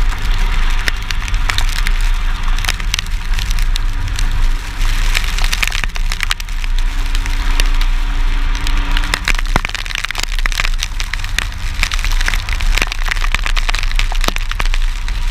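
Pickup truck engine running with a steady low rumble while driving through mud. A dense, irregular crackle of mud, water and grit strikes the truck's body throughout.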